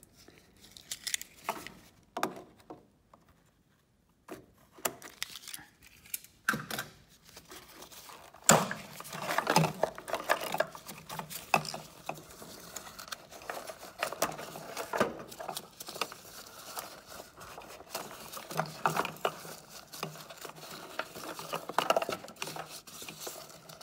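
A car's wiring loom being worked free and pulled through a hole in the body panel: irregular rustling, scraping and small clicks of cables, tape and plastic being handled, with one sharp click about eight seconds in.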